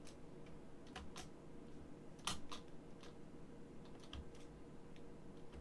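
A handful of faint computer keyboard key clicks, scattered and irregular, the loudest a little over two seconds in, over a faint steady hum.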